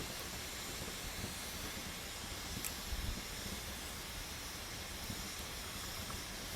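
Wood campfire burning with a steady hiss and occasional crackles, one sharp pop a little before halfway through.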